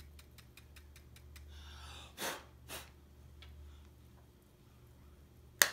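Quiet handling of a makeup brush and blush compact: faint small ticks and taps, two short hissing puffs around the middle, and one sharp click near the end.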